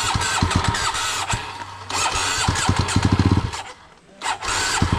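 Dirt bike engine running in uneven bursts with rapid low firing pulses, fading out about four seconds in and picking up again near the end, the pattern of a trail bike struggling to start or keep running on a climb.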